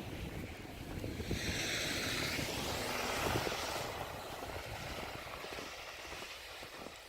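A vehicle passing on a snowy, slushy street: the hiss of its tyres through the slush swells about a second in, peaks, and fades away. Wind buffets the microphone throughout.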